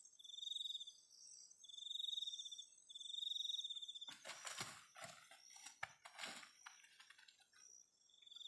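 High-pitched insect calls pulsing in short trills of under a second, repeating about every second and a half over a steady high chorus of insects. About four seconds in the calls give way to irregular rustling and crunching in dry leaf litter underfoot.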